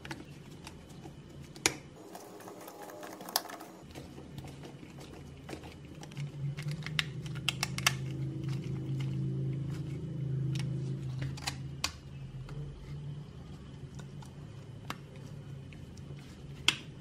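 Light clicks and taps of small plastic and diecast metal parts being handled and fitted, with a precision screwdriver turning tiny screws into a diecast model car's body shell. A low hum swells and fades in the middle.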